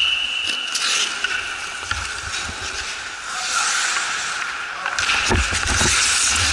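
Ice hockey skates scraping across the ice, with scattered sharp clicks and knocks, getting louder about five seconds in.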